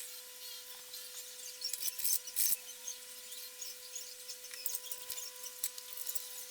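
Hand-tool scraping and rubbing on metal in uneven strokes, loudest about two seconds in, over a faint steady hum.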